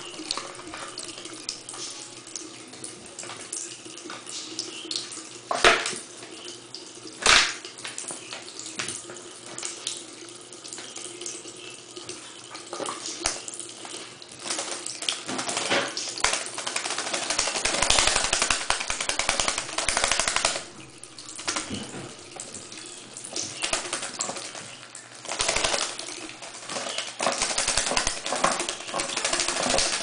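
Tap water running steadily into a sink while a pet bird bathes under the stream, splashing and fluttering in louder bursts in the second half. Two sharp knocks stand out about six and seven seconds in.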